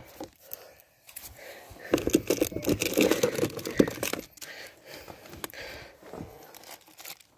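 Close handling noise: plastic tubes of exhaust repair cement rubbing and knocking against the phone and clothing, an irregular rustling with many sharp clicks, loudest from about two to four seconds in.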